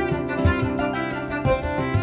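Instrumental background music with sustained pitched notes over low, recurring hits.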